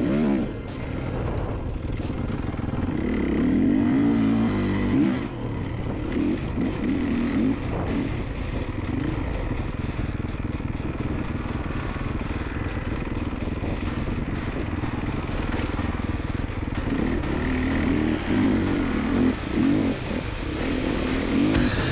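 Kawasaki KX450F dirt bike's single-cylinder four-stroke engine running on the trail, its revs rising and falling again and again as the throttle is worked.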